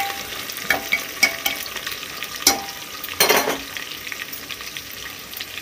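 Sliced onions sizzling in hot mustard oil in an aluminium pressure cooker, with a metal spoon clinking and scraping several times as they are stirred; the loudest scrape comes a little past three seconds in.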